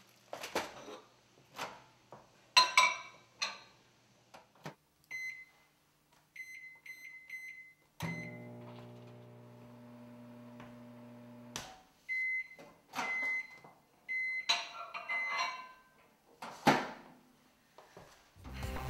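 Microwave oven being set and run: a run of short keypad beeps, a steady hum for a few seconds while it runs, then three longer beeps as the cycle ends. Clicks and knocks come before and after the beeps, and music starts right at the end.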